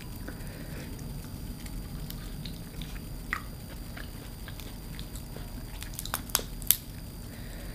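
Close-miked eating of shell-on seafood: quiet chewing and handling of shells, with a sharp click about three seconds in and a quick cluster of three or four sharp clicks near the end.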